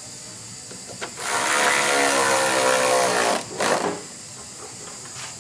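Power ratchet on a long extension driving a bolt on the car's bumper bracket: it runs for about two seconds with a whine and hiss, then gives one short burst.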